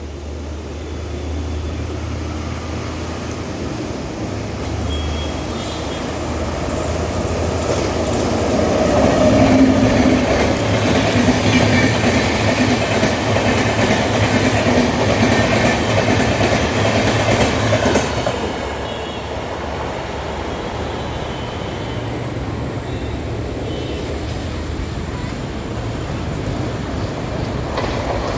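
A nine-coach double-decker express behind a WAP-7 electric locomotive passing at high speed: wheels clattering over the track and the rush of the coaches. The sound swells to its loudest as the coaches go by, then drops away about eighteen seconds in.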